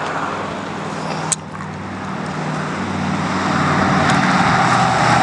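A car driving past on the road, its engine hum and tyre noise growing louder from about two seconds in. One sharp click just over a second in.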